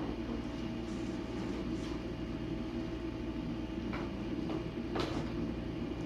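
Steady electrical hum and hiss with a few light clicks or taps about four to five seconds in.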